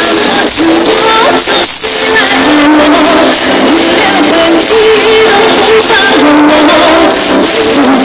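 Live pop ballad from a stage band with a female singer's held, slightly wavering melody notes, loud and continuous.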